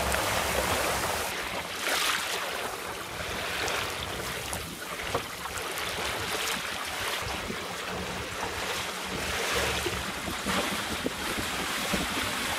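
Wind buffeting the microphone over water rushing and splashing along the hull of a small wooden sailing boat under way, in a freshening breeze that comes in gusts.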